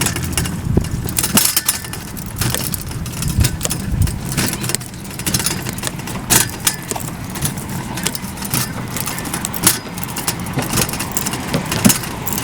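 A steady low engine-like hum with many short rattling clicks over it.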